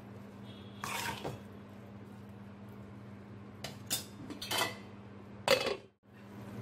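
A metal spoon scraping and clanking against a steel kadai while spinach and mushrooms are stirred: about four short scrapes, the last the loudest, over a steady low hum.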